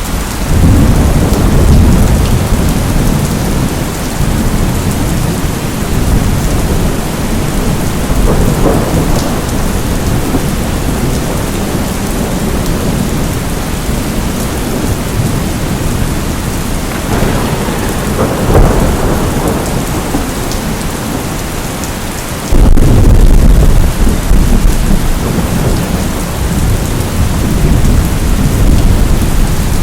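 Steady heavy rain with thunder rumbling through it; a loud rumble of thunder breaks in suddenly about three quarters of the way through.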